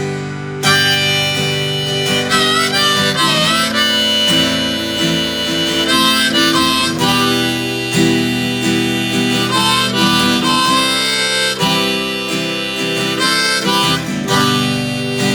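Instrumental break: a harmonica plays a solo line of held and bending notes over acoustic guitar accompaniment.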